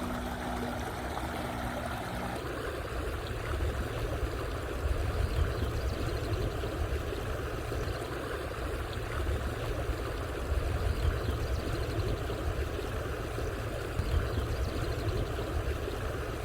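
Creek water running steadily over rocks, with a low rumble underneath. A steady low hum is heard at first and cuts off about two seconds in.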